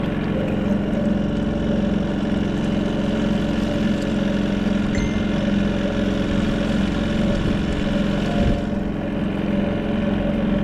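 Small boat's outboard motor running steadily, an even engine drone under way.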